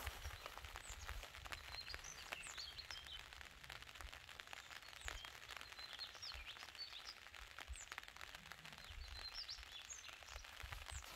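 Small birds chirping faintly at intervals, over a low rumble and scattered faint ticks.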